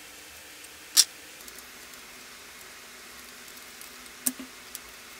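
Small steel nuts and washers clicking against each other and the aluminium cylinder head as they are taken off and handled: one sharp clink about a second in and a smaller one near the end, over a faint steady hiss.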